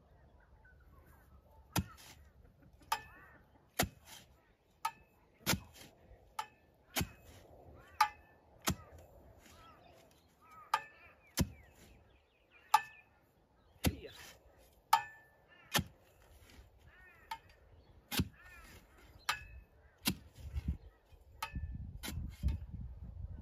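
Repeated sharp strikes of a metal digging tool into hard, compacted soil, about one a second, each with a brief metallic ring.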